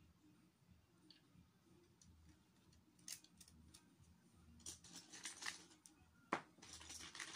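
Plastic Lego bricks clicking and rattling as they are handled and pressed together: a few scattered clicks at first, then denser bursts of rattling in the second half, with one sharp snap about two-thirds of the way through.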